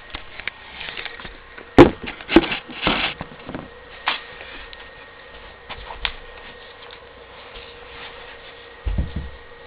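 Plastic parts of a Crosman Stinger R34 airsoft rifle being handled and fitted back together: a couple of sharp clicks, a short clatter, a few more scattered clicks and a dull thump near the end.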